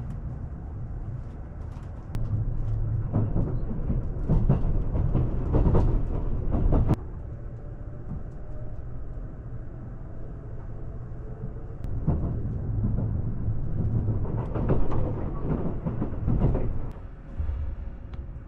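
A moving train's running rumble and rail clatter, heard from inside the carriage, growing louder for a few seconds, dropping off suddenly about seven seconds in, then swelling again midway through.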